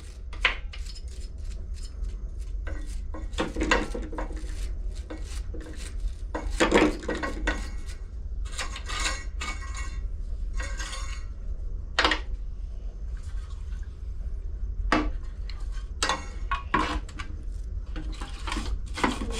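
Light metal clinks and knocks of small parts and tools being handled, with stretches of brushing or scraping, while the dirty carburetor area of a Briggs & Stratton mower engine is cleaned out. A steady low hum runs underneath.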